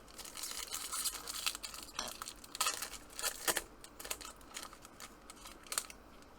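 Foil trading-card pack wrapper being torn open and crinkled while the cards are handled, in a run of crackles and sharp rustles that thins out near the end.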